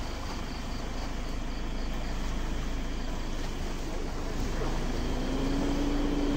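Steady low outdoor rumble, like engine or traffic noise, with a single low hum coming in about five seconds in.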